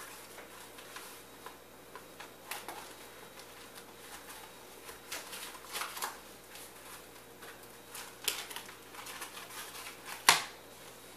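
Rustling and crinkling of a brown shipping package being handled and opened as the Blu-ray cases are pulled out, with scattered short crackles and one sharper, louder crackle near the end.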